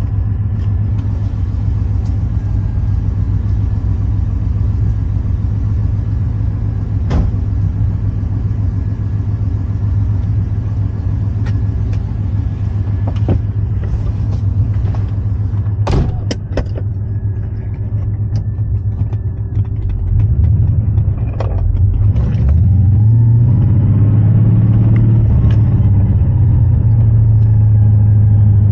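Swapped 5.7 L LS1 V8 running with a steady low rumble, overlaid with a few short clicks. It gets louder about 20 seconds in.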